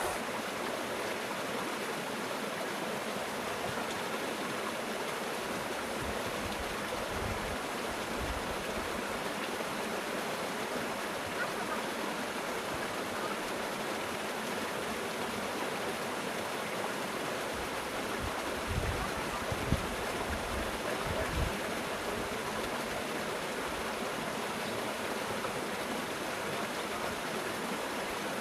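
Steady rushing of flowing river water, even and unbroken, with a few brief low bumps about two-thirds of the way through.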